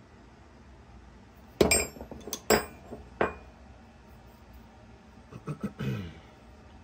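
Steel hand tools clinking and knocking together: three sharp metallic clinks with a brief ring in the first half, then softer handling sounds near the end.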